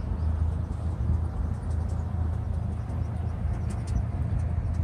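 Engine of a small fishing boat running steadily, a low hum.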